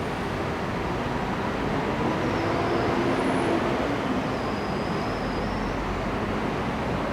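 Diesel-electric locomotive (EMD G12) approaching, a steady engine rumble with faint tones that grows a little louder about two seconds in.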